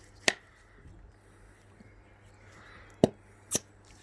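Three short sharp clicks or taps, one near the start and two close together about three seconds in.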